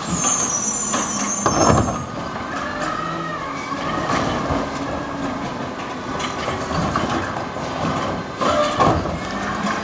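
A 2011 Peterbilt 320 garbage truck with a Wayne Curbtender body is running as it creeps along the curb. A high brake squeal sounds over the first second or so, a wavering squeal follows a few seconds in, and there are a couple of knocks near the end.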